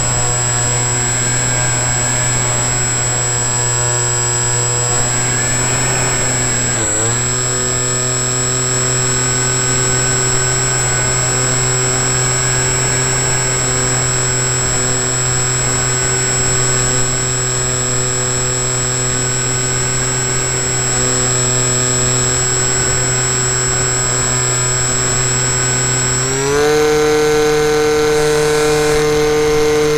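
Electric motor and propeller of an FPV model plane whining steadily in flight. The pitch wobbles and dips briefly about seven seconds in, then steps up and gets louder near the end as the throttle is opened.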